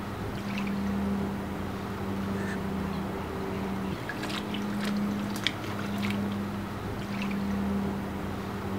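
Dogue de Bordeaux puppy paddling and pawing in a shallow plastic kiddie pool, with a few small splashes and sloshes of water. A steady low hum runs underneath, breaking off briefly a few times.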